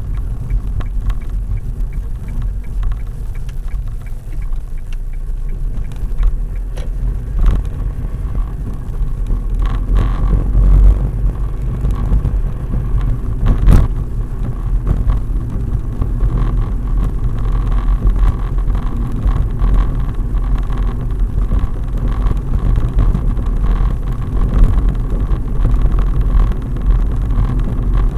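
Car driving along a road, heard from inside the cabin: a steady low rumble of engine and tyres, with a few short knocks, the loudest about fourteen seconds in.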